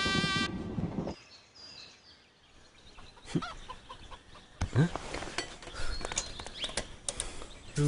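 A music sting ends about a second in, then quiet, sparse ambient sound: scattered clicks and knocks with a few short rising chirps.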